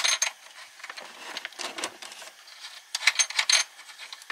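Metal antenna-cable connector being worked onto the radio's socket: quick scratchy metal clicks and rubbing from the threaded coupling ring. They come in a burst at the start and again about three seconds in, the thread not catching.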